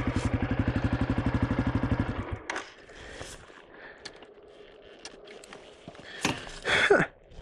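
2023 Honda CRF250F's single-cylinder four-stroke engine idling with an even, fast beat, then stopping about two seconds in. Faint scuffs and knocks follow, with two louder short bursts near the end.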